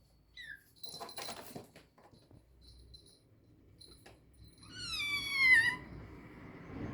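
A kitten gives one long, loud mew about five seconds in, falling slightly in pitch. Soft rustling comes before it, about a second in.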